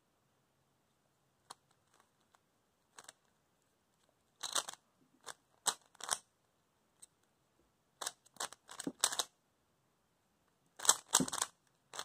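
Stickerless plastic Rubik's cube having its layers twisted by hand: short clacking turns. A few faint clicks come first, then quick clusters of turns with pauses between them, the loudest cluster near the end.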